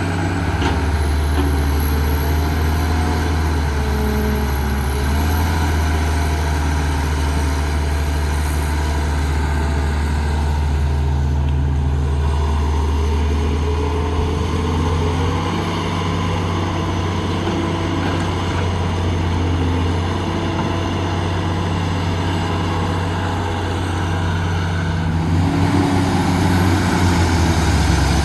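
Diesel engine of heavy construction machinery running with a steady low drone; the engine note shifts a few times and grows louder near the end.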